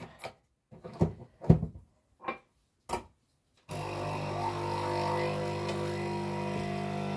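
A few short knocks and clicks of things being handled in a kitchen, then, just over halfway through, an electric kitchen appliance switches on and hums steadily.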